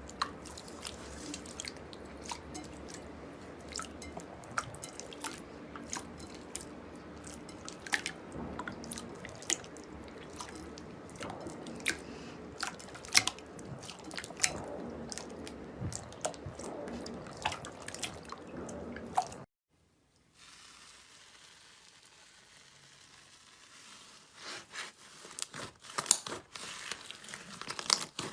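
Slime being squished and poked by hand, giving many small wet clicks and crackling pops. The sound cuts off abruptly about two-thirds of the way in, then resumes more quietly with the popping picking up again near the end.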